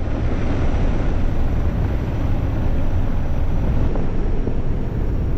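Steady engine and rushing-air noise inside a De Havilland C-147A twin-turboprop jump plane in flight, heaviest in the low end.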